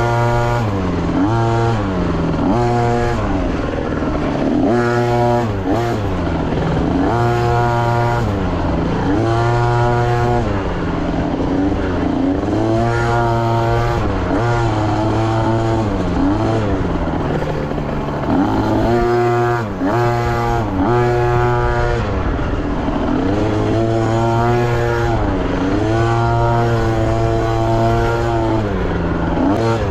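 A dirt bike engine ridden hard, revving up and falling back over and over as the throttle is opened and shut, its pitch climbing and dropping every second or two, with a few longer held pulls.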